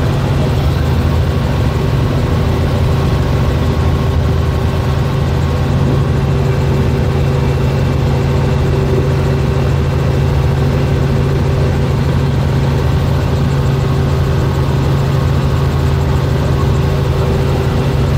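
Robinson R44 helicopter in cruise flight, heard from on board: a steady drone of its six-cylinder piston engine and rotors holding one pitch.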